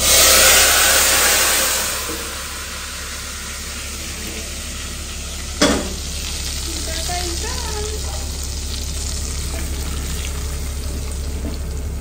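Hot tempering oil (tadka) with garlic, chilli and cumin hitting cooked masoor dal in an aluminium pressure-cooker pot: a loud sizzle right at the start that dies down over about two seconds to a quieter crackle. One sharp knock about halfway through, and a wooden spoon stirring the dal.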